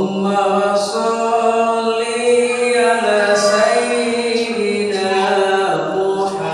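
A man's voice chanting in long, drawn-out melodic notes, stepping from one held pitch to the next, in the ornamented style of Qur'anic and devotional recitation.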